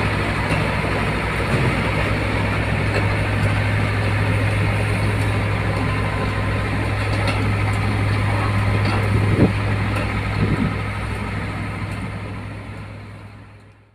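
Caterpillar D3C crawler dozer's Cat 3046 six-cylinder diesel engine running steadily as the dozer drives on its tracks, fading out near the end.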